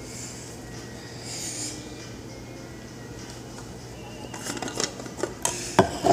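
Light clatter of kitchen things handled on a counter: a few sharp clicks and knocks in the last two seconds, over a steady low hum.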